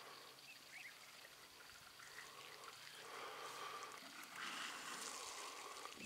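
Faint trickling water as African elephants drink at a waterhole, pouring water from their trunks into their mouths.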